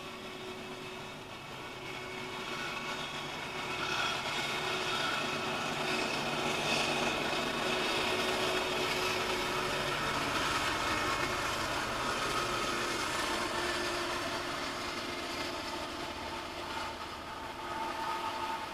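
Norfolk Southern diesel freight train passing, heard through a car's dashcam: a steady mechanical noise with a few held tones that grows louder about four seconds in and eases off near the end.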